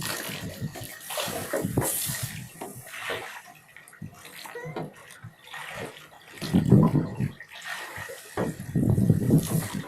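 Water splashing and sloshing in irregular bursts, with two heavier splashes in the second half.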